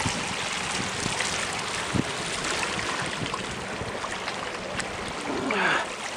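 Steady wash of sea water on a lava-rock shore, with a few soft knocks.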